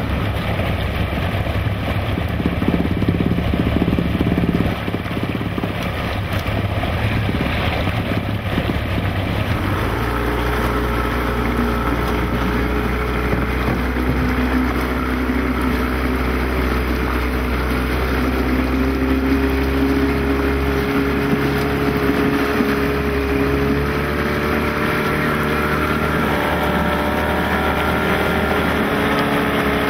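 Motorboat engine running steadily underway, with water and wind noise; the engine note changes about ten seconds in and then holds even.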